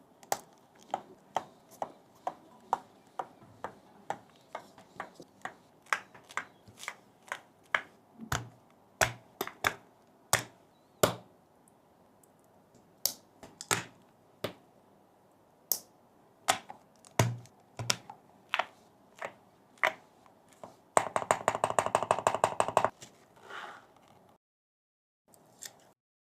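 Enamelled metal keycaps being pressed onto a mechanical keyboard's switches, giving sharp single clicks about one or two a second, some with a dull thud. Near the end comes a quick two-second rattle of many rapid clicks.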